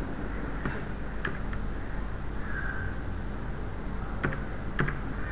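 A few scattered computer keyboard key presses over a steady low hum, with a short faint high sound about halfway through.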